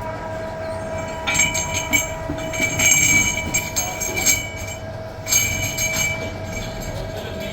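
Metalworking machine running with a steady tone, joined about a second in by loud, high-pitched squealing that comes and goes for about four seconds before easing off.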